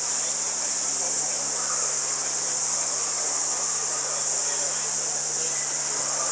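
A steady, loud, high-pitched chorus of insects, with a faint low steady hum underneath.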